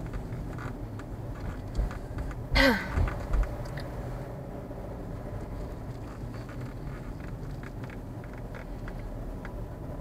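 Steady engine and road noise heard from inside a car driving a winding road. A short falling-pitched sound and a few thumps come about two to three and a half seconds in.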